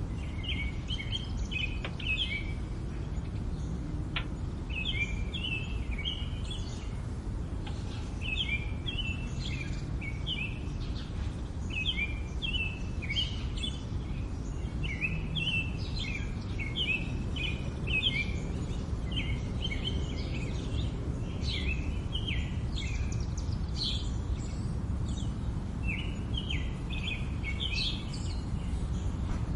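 Small birds chirping in quick clusters of short notes, repeating every second or two, over a steady low rumble of background noise.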